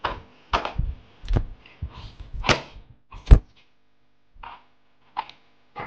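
Bundles of fresh hand-pressed noodles slapped and dropped onto a stainless-steel worktop: about eight soft, irregular thuds and slaps with short gaps, the loudest about three seconds in.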